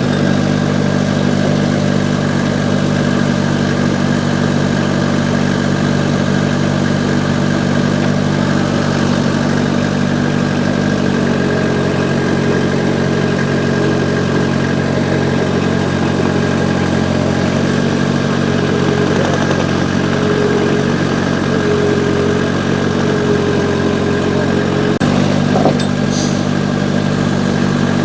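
Vermeer S925TX skid-steer's diesel engine running steadily. About eleven seconds in the engine note shifts and a faint whine comes in; near the end the note shifts back and the whine stops.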